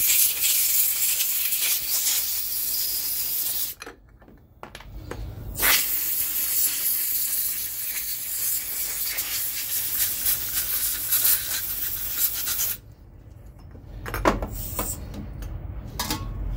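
Compressed air from a blow gun hissing through Arctic Cat quad carburetor parts to blow the cleaning water out of them. It comes in two long blasts with a short break between, then stops, leaving a few light clicks of parts being handled near the end.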